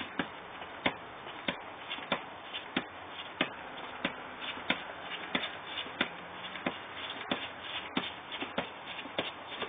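Football being juggled on the feet: a steady run of dull taps, about three touches every two seconds, with lighter scuffs of trainers on the paving in between.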